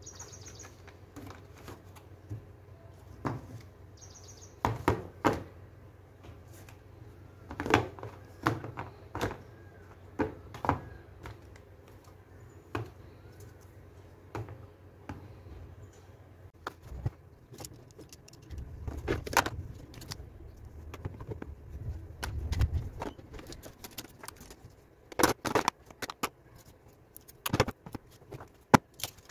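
Small plastic stationery items being set down and shuffled inside a clear plastic storage box: scattered clicks and knocks, closer together near the end.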